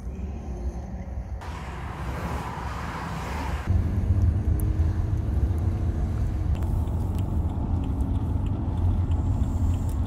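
Low, steady rumble of a BMW car's engine and tyres heard from inside the cabin, stepping up in level about four seconds in as the car drives freely on the motorway. A rushing hiss comes and goes a little before the step.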